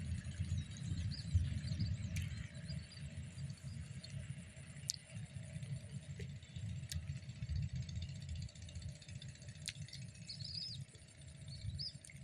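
Outdoor ambience: a low, uneven rumble throughout, with a few faint high bird chirps about a second in and again near the end.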